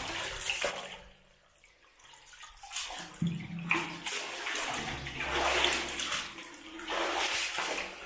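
Shallow cave water splashing and sloshing as a person crawls through it, in irregular surges, with a brief lull about a second in.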